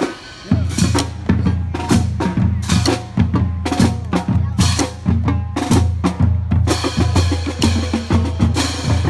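Marching band drumline playing a cadence on snare drums and bass drums: a steady, loud run of hits several times a second, with low notes ringing under them.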